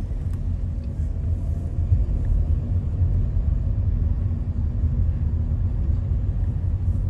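Car driving along a city street: a steady low rumble of engine and tyre noise.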